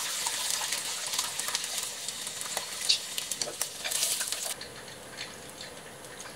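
Chicken breast pieces sizzling and crackling as they deep-fry in a shallow pan of hot oil, with a few sharp clicks. The sizzle thins out about four and a half seconds in as the last pieces are lifted from the oil.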